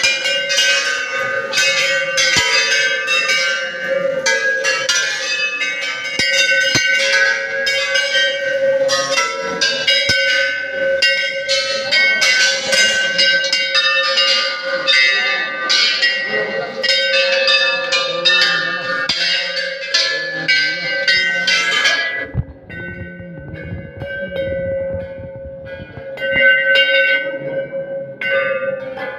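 Hanging metal temple bells struck by hand again and again, many strikes overlapping over a steady ringing hum. About 22 seconds in the ringing thins out to fewer, fainter strikes.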